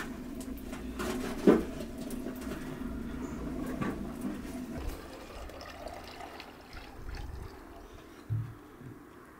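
Wood fire crackling in a small sheet-metal stove as a man bends down and blows on it, with one sharp crack about one and a half seconds in. A dull thump near the end.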